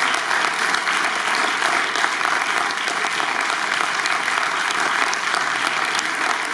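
Audience applauding steadily, a dense, unbroken clatter of many hands clapping.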